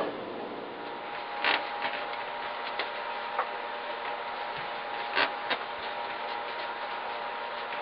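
A handful of sharp clicks and knocks at irregular intervals over a steady hiss with a faint hum.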